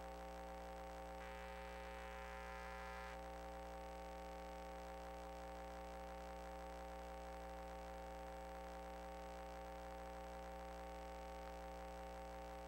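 Faint steady electrical hum, a few fixed tones under a low hiss, with no other sound.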